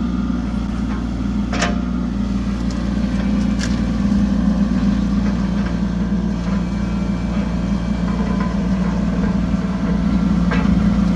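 Mini excavator engine running steadily, with a couple of brief sharp knocks in the first few seconds.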